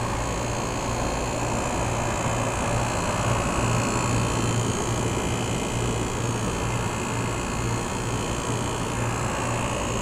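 Window air conditioner running: the steady rush of its fan with a low, even hum from the compressor underneath.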